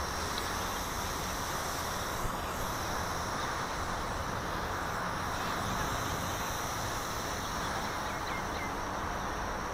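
Walkera QR Y100 mini hexacopter's electric motors and propellers buzzing steadily in flight.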